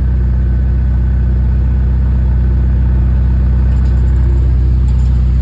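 Ferrari F8 Spider's twin-turbo V8 idling steadily, heard close to its exhaust tips.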